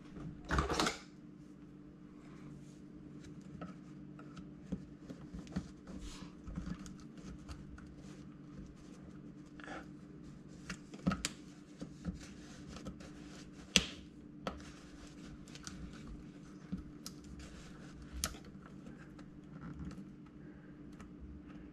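Hands working at dishwasher wiring and at a plastic part held on by metal gripper clips. Scattered small clicks and rustles of wires and plastic, with a louder scrape about a second in and sharp clicks past the middle, all over a steady low hum.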